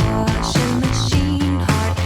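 Pop-rock music with guitar and bass over a steady beat.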